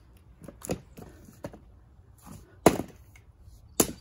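Axe blows on firewood at a chopping block: a few lighter knocks in the first half, then two sharp, loud strikes about a second apart near the end.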